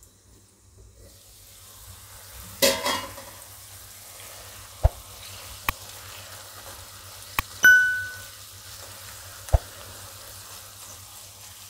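Cauliflower florets simmering and sizzling in oil and water in a kadai, stirred with a silicone spatula. The sizzle builds over the first two seconds, a metal clatter comes about two and a half seconds in as the lid comes off, and the spatula knocks against the pan a few times, with one short ringing clink a little past halfway.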